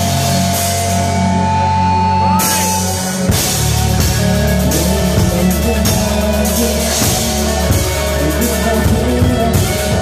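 Live rock band playing loud: electric guitars and a drum kit, with the cymbals and drums coming in fuller about two and a half seconds in.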